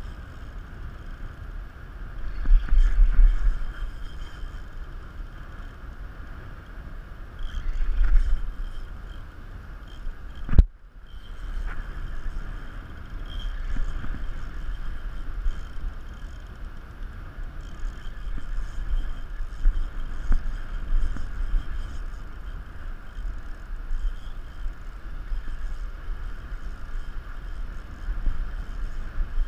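Wind buffeting the microphone over a steady rush of surf, with gusts of low rumble a few seconds in and again around eight seconds, and one sharp click about ten and a half seconds in.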